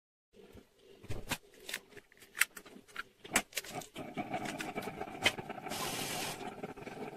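Eggs being cracked into a ceramic bowl: a series of sharp taps and cracks of shell against the rim, then the shells being pulled apart. A short hiss comes about six seconds in.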